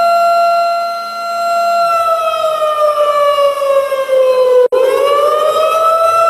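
Siren sounding a loud steady tone that slides down in pitch for a few seconds, cuts out for an instant about two-thirds of the way in, then rises back to its steady pitch.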